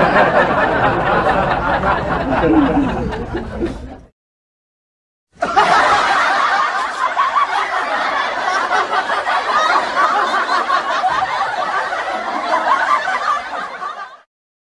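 Laughter from a crowd of many people, a laugh-track effect, in two stretches: about four seconds, then a dead-silent gap of about a second, then about nine seconds more.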